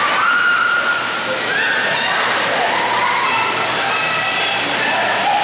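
Water gushing steadily out of the end of a water slide and splashing into the pool, with faint voices in the background.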